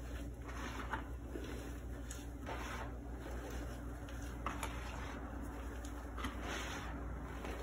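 Hands squeezing and crumbling powdered purple gym chalk in a basin: soft, irregular crunching and rustling that swells with each grab. A steady low hum runs underneath.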